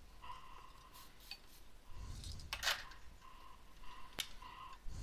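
Quiet handling of parts and tools on an electronics workbench during reassembly: small clicks, a short scrape a little past halfway and one sharp click near the end, over a faint high tone that comes and goes.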